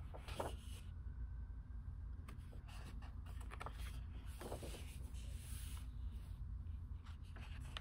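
Pages of a large, oversized hardcover book being turned by hand, several times, each turn a short rustling swish of heavy paper, over a steady low hum.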